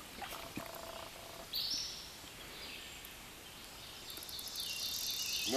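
Hooked trout splashing and thrashing at the stream's surface while being played on a fly rod, with a short splash about a second and a half in and a building hiss near the end.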